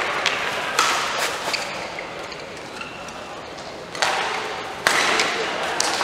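Badminton racket hitting a shuttlecock in a large hall: a sharp hit about four seconds in and another just under a second later, each with a long hall echo. Crowd noise fades away over the first few seconds.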